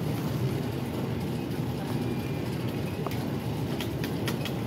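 Muffled rumbling and rustling from a phone microphone held against an arm and shirt, over the background noise of an airport check-in hall, with a few faint clicks in the second half.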